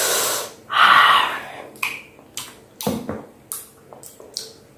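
Two loud breathy huffs of breath, the second the louder, then a run of short, sharp mouth smacks and clicks about every half second, with one duller knock among them about three seconds in.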